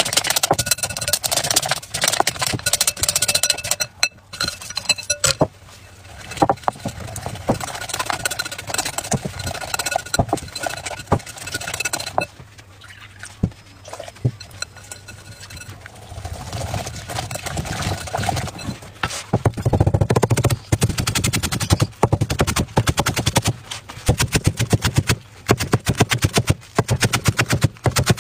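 A whisk clicks and scrapes against a glass bowl as batter is beaten, with some ringing from the glass. From about twenty seconds in, a cleaver chops rapidly on a wooden chopping board in a fast, even run of sharp knocks, slicing green onion leaves into fine shreds.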